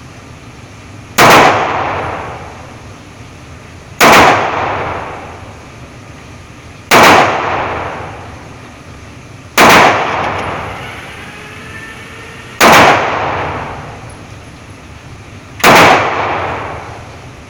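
Taurus G2C compact semi-automatic pistol fired six times in slow, deliberate single shots about three seconds apart, each loud report trailing off in an echo over a second or two.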